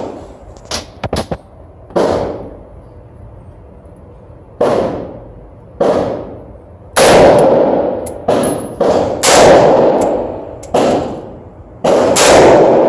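A 5.45×39 AK-pattern rifle fires single shots at an uneven pace, each shot ringing out in a long echo off the hard walls of an indoor range. The shots are spaced a second or more apart at first and come quicker in the second half, with a few faint sharp clicks about a second in.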